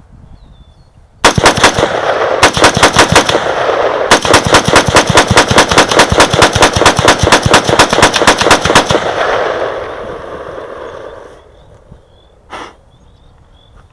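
Del-ton AR-15 rifle emptying a magazine in rapid semi-automatic fire, about a mag dump's worth of shots in quick succession with two brief pauses near the start. The echo rolls away for a couple of seconds after the last shot, and a single short knock follows near the end.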